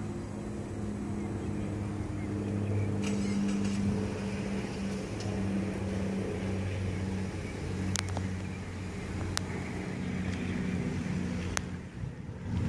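Steady low hum of an idling vehicle engine, with three sharp clicks in the second half.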